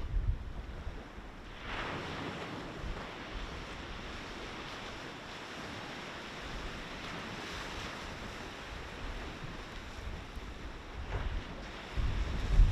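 Sea waves washing in on the shore, a steady wash of surf that swells about two seconds in. Wind buffets the microphone near the end.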